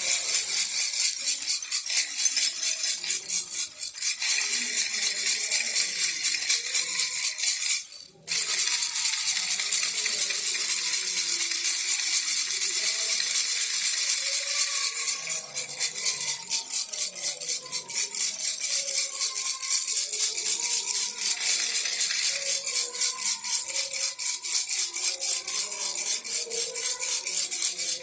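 A baby rattle shaken on and on in quick strokes, making a dense, bright rattling, with a brief stop about eight seconds in.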